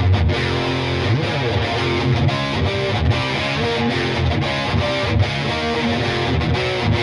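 B.C. Rich Virgo electric guitar played through a distorted tone: a busy run of picked notes, with a bent note about a second in.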